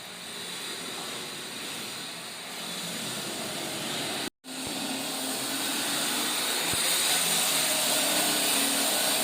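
Power tool running steadily with a high whine over a hiss, growing slowly louder, with a brief cut-out about four seconds in.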